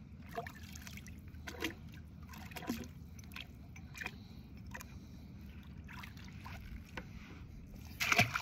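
Water trickling and plinking in scattered small drops against a kayak hull, over a steady low rumble, with one brief louder splashy rustle near the end.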